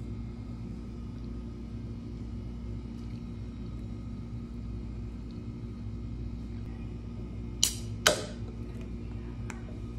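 Aluminium soda can of carbonated milk soda being opened: two sharp clicks of the pull tab about half a second apart near the end, the second with a brief fizzing hiss, over a steady low room hum.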